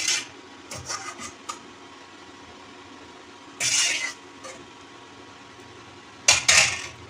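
Metal skimmer scraping and clattering against the inside of a cooking pot in several short bursts while boiled bathua greens are scooped out, over a steady background hum.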